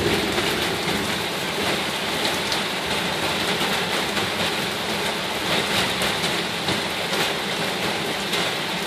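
Heavy thunderstorm rain falling steadily, a dense, even hiss of pouring water.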